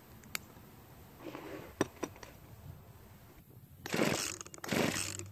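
A few faint clicks of the compression tester's fitting being handled at the chainsaw's spark plug hole. Then, about four seconds in, the recoil starter cord is pulled twice in quick succession, cranking the Poulan chainsaw's two-stroke engine against the gauge. The engine has very low compression, reading only 55 psi, from a badly damaged piston and ring.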